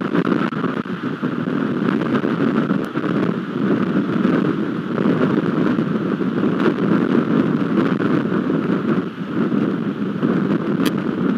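Steady, loud rush of rain and wind on an outdoor camera's microphone, swelling and easing slightly.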